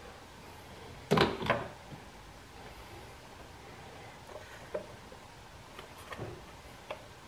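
Two sharp clunks in quick succession about a second in, then a few faint clicks: hands handling ignition coils and a small Torx driver, seating the coils and setting their screws.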